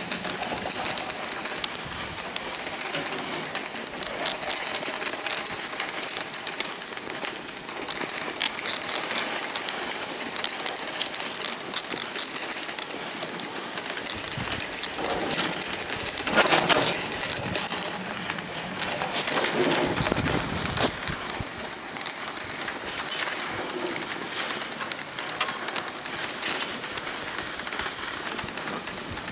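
Skis sliding and scraping over packed snow while towed up a surface-lift track: a steady, rough, crackly hiss that swells briefly about halfway through.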